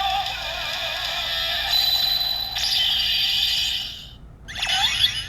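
Kamen Rider Ex-Aid Heisei riders Gashat toy playing its electronic sound effects and music through its small tinny speaker. It cuts off about four seconds in, and a short swooping sound follows.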